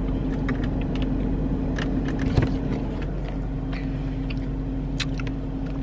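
Steady hum of an idling car heard from inside the cabin, with scattered light clicks and a soft knock about two and a half seconds in from the plastic cup and spoon being handled.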